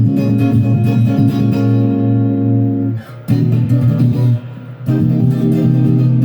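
Stratocaster electric guitar with two pickups on together (the in-between "quack" position), played through a Blue Screamer overdrive pedal in normal mode: picked notes ring out and sustain. There are two short breaks, about three seconds in and again about four and a half seconds in.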